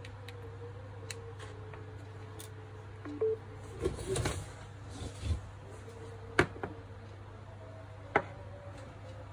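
Samsung Galaxy S9 giving a short electronic charger-connected beep about three seconds in as its USB-C cable goes in, then handling noise from the phone being picked up and two sharp taps or clicks later on. A steady low hum runs underneath.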